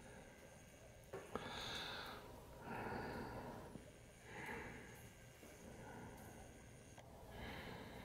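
Faint breathing close to the microphone: four soft breaths spread over several seconds, with a small click just over a second in.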